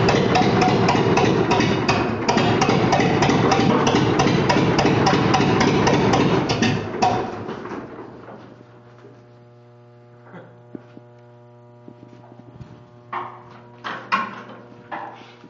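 McCormick-Deering W-30 tractor's four-cylinder engine running with a rapid, even beat, then shut off about seven seconds in and dying away within a second. After it stops, a steady electrical hum remains, with a few short knocks and clunks near the end.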